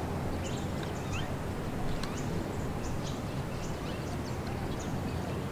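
Outdoor ambience: a steady low rumble of wind on the microphone, with scattered short, high bird chirps.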